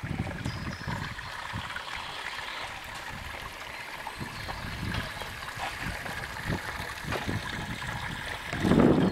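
Water trickling and gurgling in a steady stream. Near the end a louder low rumble of wind buffets the microphone.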